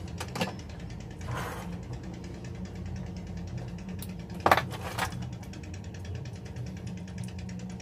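Steady low mechanical hum in the background, with a few sharp clicks and knocks from handling wires and a soldering iron at an amplifier chassis. The loudest are two knocks close together about four and a half seconds in.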